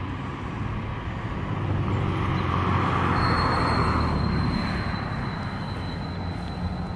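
A heavy vehicle passing, a low rumble that swells and then fades, with a thin steady high whine starting about three seconds in.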